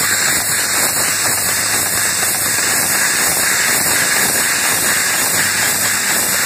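Automated machine with a rotary indexing table and chain feed running: a steady, loud hiss over a continuous mechanical rattle.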